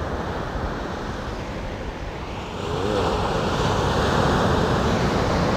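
Ocean surf: waves washing up the beach, swelling louder about three seconds in as a wave breaks close by.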